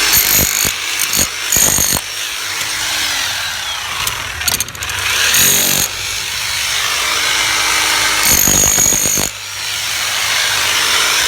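A power tool running steadily for several seconds, with a high edge that comes and goes and brief dips in level twice.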